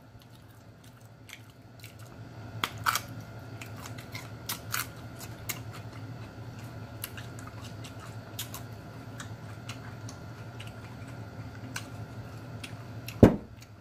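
Close-miked eating sounds: food chewed with the mouth, scattered wet clicks and smacks over a steady low hum, and one sharp knock near the end.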